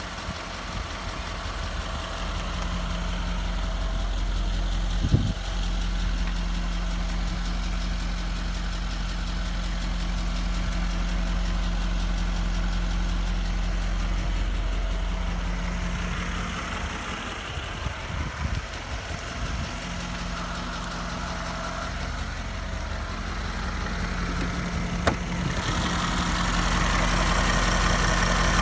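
Range Rover 4.4 TDV8 V8 diesel running warm and steady with a loud, consistent ticking that follows engine speed. The owner places the tick on the driver's side near the back of the front wing and rules out the belts, tensioner and fan. A single thump about five seconds in.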